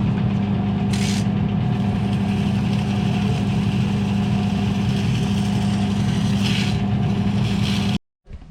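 A workshop machine's motor running steadily with a low hum and a faint steady whine, cutting off abruptly near the end.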